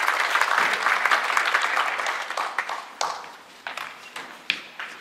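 Audience applause dying away over the first three seconds or so, leaving a few scattered single claps.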